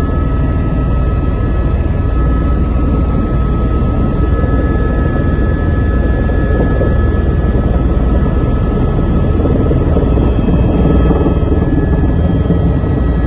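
Helicopter running: a steady, dense low rumble with a few steady whining tones above it.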